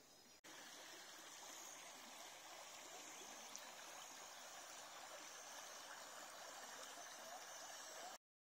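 Faint, steady rush of shallow river water running over rocks. It starts just after a brief dropout and cuts off abruptly near the end.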